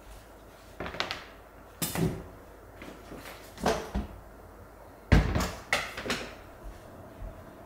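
Kitchen handling noises: about five separate knocks and clatters as a plastic cutting board and a knife are set down on a stone countertop and things are moved about. The loudest knock comes about five seconds in.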